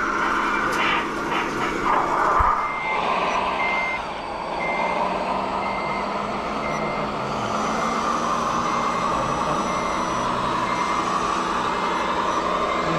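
Reversing beeper on a radio-controlled scale truck, a high beep repeating about twice a second from about three seconds in, over the steady whine of the model's motor.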